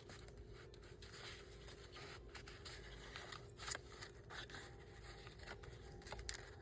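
Faint handling of paper and craft supplies on a desk: scattered light scrapes and ticks, one a little louder about halfway through, over a faint steady hum.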